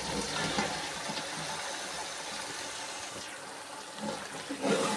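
Pot of meat and masala sizzling steadily as chopped cauliflower and potato pieces tumble in from a plastic colander. A spoon stirs the pot about four and a half seconds in, a short louder patch over the sizzle.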